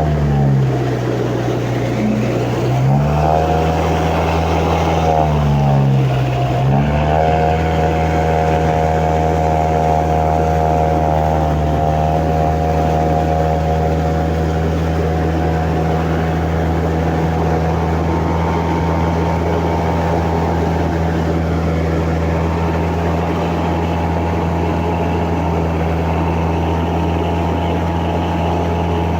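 The Toyota engine of an amphibious all-terrain vehicle running under load while the vehicle swims, its wheels driving it through the water. The engine pitch dips and climbs back twice in the first seven seconds, then holds steady.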